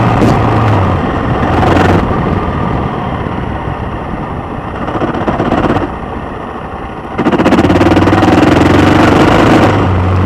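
Suzuki XF650 Freewind's single-cylinder engine running. It eases off after about two seconds and opens up again, louder, about seven seconds in.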